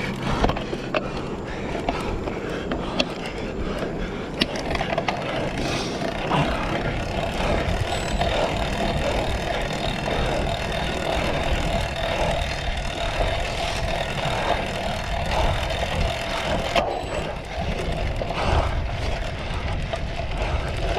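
Cyclocross bike ridden over rough ground: tyres rumbling, with the frame and drivetrain rattling and clicking, and wind on the microphone.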